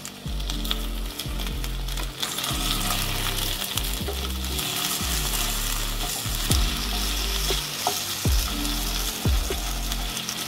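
Sliced potatoes sizzling as they fry in a nonstick frying pan, with a wooden spatula scraping and tapping against the pan several times in the second half as it turns the slices.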